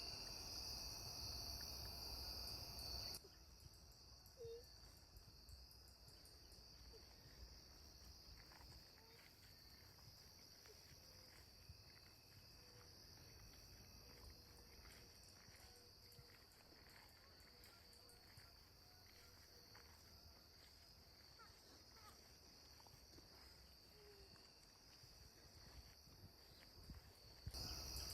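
Steady high insect chirring over a low outdoor rumble that cuts off abruptly about three seconds in. A faint, near-silent background follows, with a few soft chirps, until the chirring comes back suddenly near the end.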